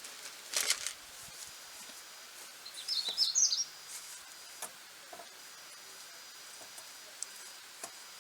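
A small bird chirping, a quick run of high notes about three seconds in. There are a few sharp clicks and knocks about half a second in and again later, over a faint steady background hiss.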